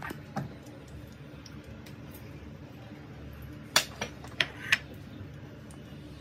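Metal kitchen utensils clinking against steel cookware: a light tap near the start, then four sharp clinks in quick succession about four seconds in, over a steady low hum.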